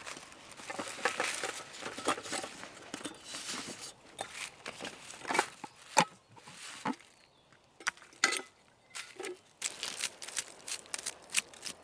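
Camping gear being handled: a compact camping stove set pulled from its mesh bag and its metal and plastic parts taken apart and fitted together, giving many sharp clicks and knocks over soft rustling. Near the end a hand brushes across a tree stump.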